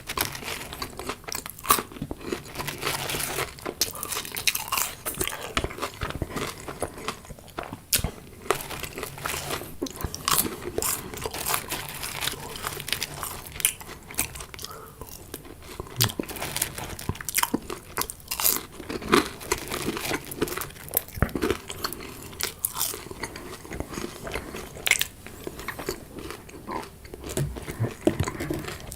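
Close-up chewing of crunchy food: dense, irregular crisp crunches as each bite is chewed.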